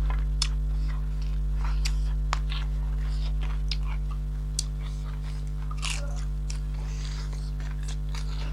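Close-up eating sounds: biting and chewing with scattered crunchy clicks and wet smacks, over a steady low electrical hum.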